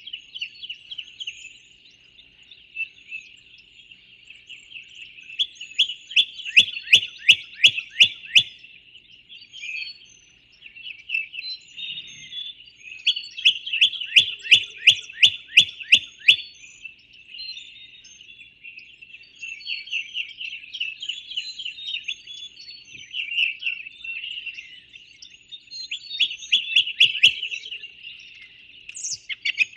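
Songbirds chirping and calling in a steady background chorus, with two louder bouts of rapidly repeated notes, about six seconds in and again midway, and faint thin high notes over the top.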